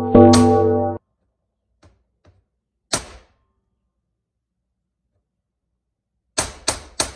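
Background music that cuts off about a second in, then a single sharp knock, and near the end three quick hammer taps about a third of a second apart.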